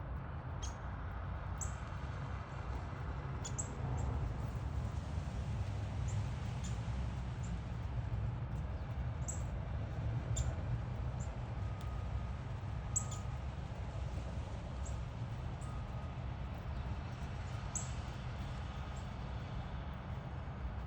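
Small birds giving short, sharp high chip notes, scattered singly and in pairs every second or two, over a steady low rumble.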